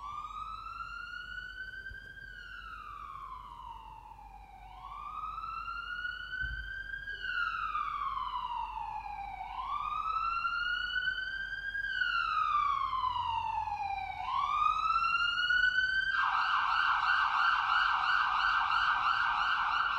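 Police car siren in a slow wail, rising and falling about every five seconds and growing louder as the car approaches. About 16 seconds in it switches to a fast warbling yelp.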